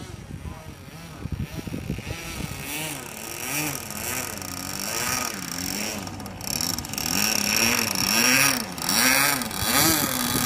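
Small model airplane engine running, its pitch rising and falling about once a second, louder in the second half.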